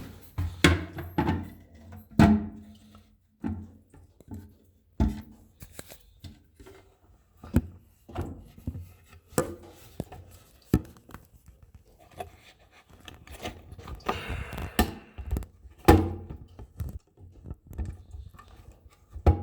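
Irregular knocks, clacks and clicks of a toilet seat's plastic parts and hinge fittings being set down and pushed into place on the bowl. Some knocks ring briefly, and a louder knock comes a little over two seconds in and again near the end.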